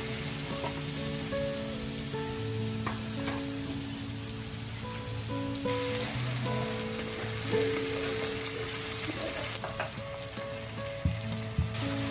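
Food sizzling as it fries in a pan, a steady hiss that jumps in level at abrupt cuts, under background music of held melodic notes.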